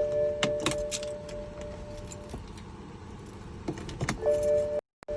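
A 2011 BMW 328i that won't start, making its no-start noise: a steady whining tone that stops after about two seconds and returns briefly near the end, with scattered sharp clicks and keys jingling.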